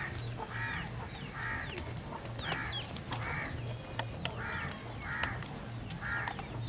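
Crows cawing over and over, about ten harsh caws spaced half a second to a second apart. A low hum runs beneath them.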